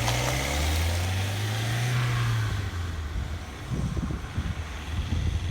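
A heavy lorry's diesel engine pulling away: the low engine note rises, swells and then eases off about halfway through, leaving an uneven low rumble.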